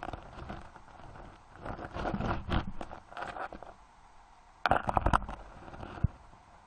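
Muffled scraping and clicking heard underwater on a gravel and shell stream bed, with a louder cluster of sharp clicks about five seconds in and a single click about a second later.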